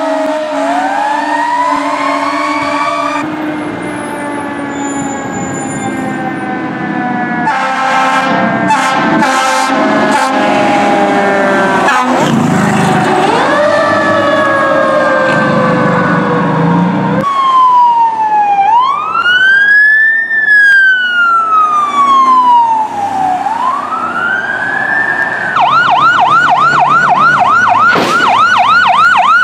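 Fire truck sirens. A wail rises and falls slowly, with what sounds like short air horn blasts in the middle. About four seconds before the end the siren switches to a fast yelp, warbling several times a second.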